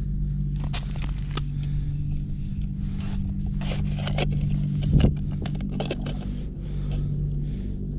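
Clicks, scrapes and rustles of hands handling a plastic ice-fishing tip-up (its line spool and flag) over a hole in the ice, with a louder knock about five seconds in. A steady low hum runs underneath.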